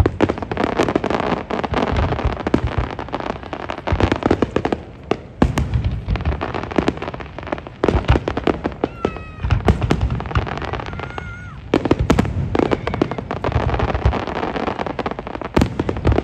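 Fireworks display: a dense, unbroken barrage of aerial shells bursting, with deep booms and rapid crackling.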